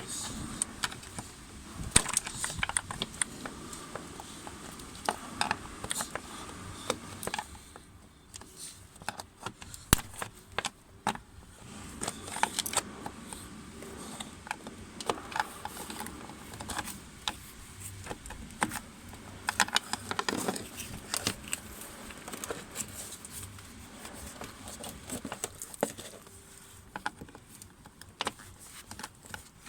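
Irregular clicks, knocks and rattles of hand work on plastic and metal parts, with a few sharper knocks standing out, as the coolant distributor of a Porsche Taycan is worked free and pulled off.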